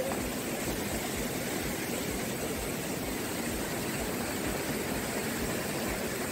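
Steady rushing of a flowing hill stream.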